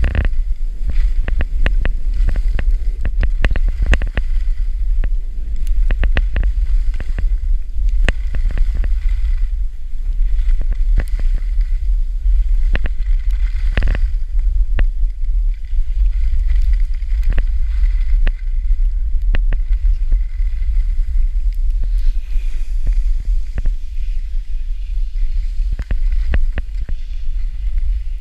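Wind rumbling steadily on the camera microphone while a snowboard slides down a snowy run, its base and edges scraping the snow with frequent sharp clicks and rattles of board chatter.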